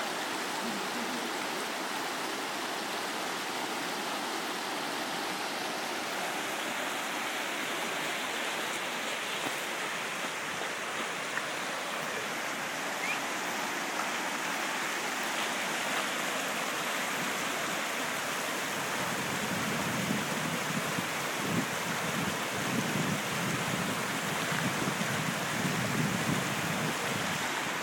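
Creek water rushing steadily over rocks and boulders. In the last third, low rumbling gusts come in over the water.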